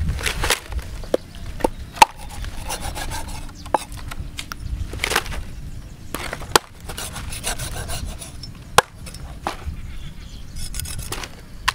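A cleaver cutting raw stingray on a wooden chopping block: the blade scrapes and slides through the flesh, with several sharp, irregular knocks of the blade on the wood, the loudest about two seconds in.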